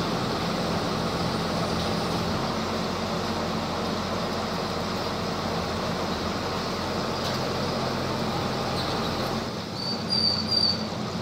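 Truck-mounted borewell drilling rig's engine running steadily. Near the end the low rumble drops away, and three short, high squeaks follow.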